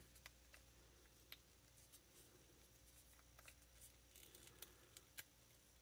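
Near silence, with a few faint, scattered clicks of a plastic action figure being handled as a ball peg is worked back into its socket.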